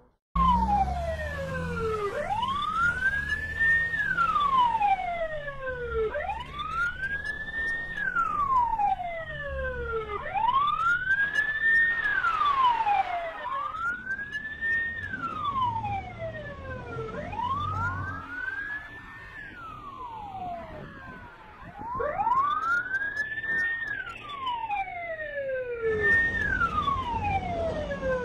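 Police-style siren wailing, its pitch sweeping up and then gliding down in a slow cycle of about four seconds that repeats over and over, over a low rumble of road traffic.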